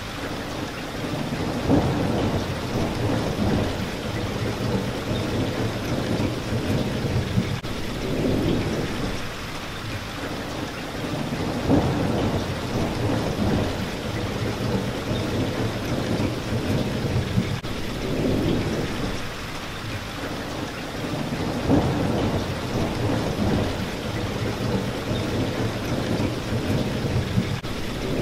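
Steady rain falling, with low rolling thunder that swells and fades several times.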